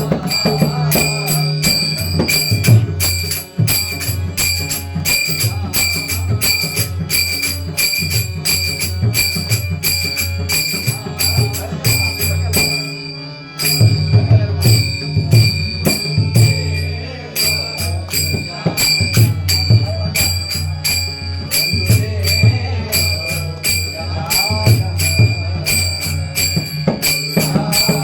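Devotional bhajan accompaniment: small brass hand cymbals (taal) struck in a fast, steady rhythm with a ringing metallic tone, over a drum and a sustained low drone. The music breaks off briefly a little under halfway through, then resumes.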